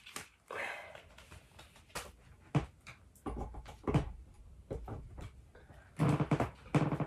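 Handling noises from a small plastic space heater and its power cord: knocks as the heater is set down and picked up, and rustles of the cord being unwound and plugged in. A short low pitched sound near the end.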